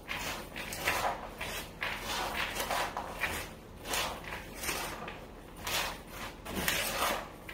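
Large metal spoon tossing frozen wild blueberries with sugar in a large bowl: repeated scraping, rustling strokes, about one every half second to a second.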